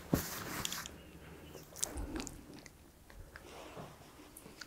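Soft rustle of a cloth blindfold being pulled off and handled, strongest in the first second, then scattered faint clicks and small handling noises.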